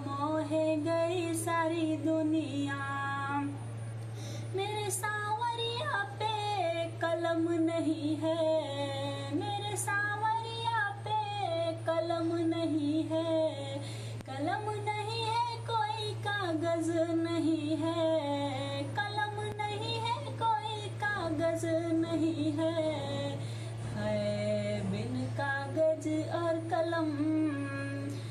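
A woman singing a Hindi devotional bhajan with held, gliding notes over musical accompaniment, with a steady low hum underneath.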